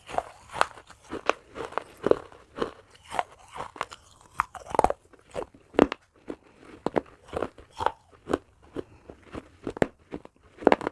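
Close-miked chewing of crunchy baked clay pot pieces, with a steady run of sharp crunches at about two a second.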